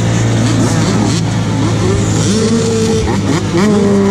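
Several youth dirt bike engines running together, idling with overlapping revs that rise and fall in pitch.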